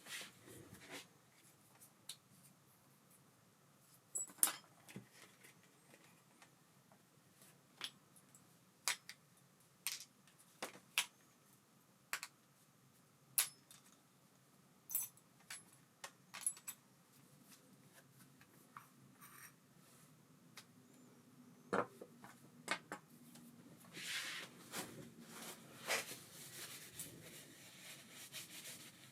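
Irregular sharp clicks and light metallic clinks of small baitcasting-reel parts and tools being handled on a bench, with a busier run of handling near the end.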